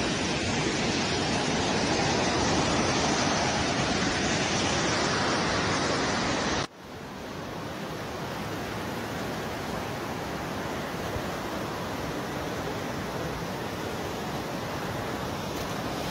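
Fast floodwater rushing past a brick structure, a loud, steady rush of water. About seven seconds in it cuts abruptly to a quieter, steady rushing noise over flooded fields.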